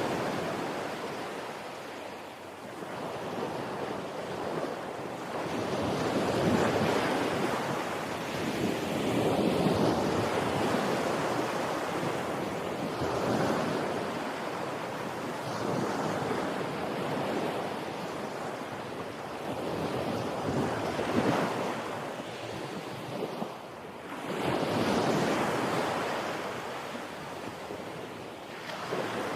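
Ocean waves breaking and washing on a beach, a continuous surf that swells and ebbs every few seconds, with wind buffeting the microphone.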